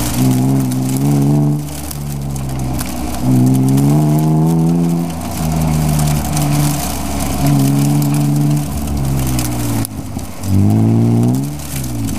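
BMW E36 M3's straight-six engine heard from inside the cabin, pulling hard and backing off again several times, its pitch rising on each pull and dropping when the throttle lifts.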